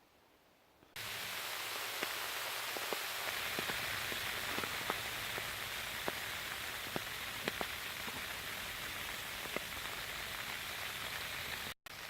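Hail, sleet and rain pelting down on and around a tarp shelter: a steady hiss with scattered sharp ticks of hailstones striking. It starts suddenly about a second in and breaks off for a moment near the end.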